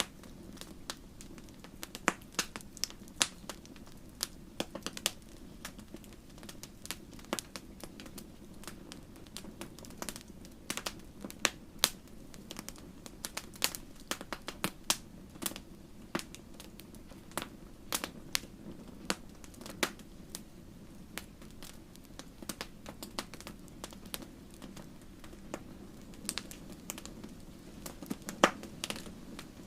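Wood fire crackling and popping in a fireplace: frequent sharp irregular pops and snaps over a low steady rumble of the flames.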